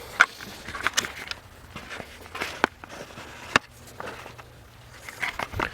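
Scattered light knocks and clicks at irregular intervals over a faint low hum.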